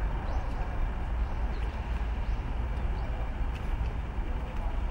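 Steady outdoor background noise, mostly a low rumble, with faint distant sounds above it.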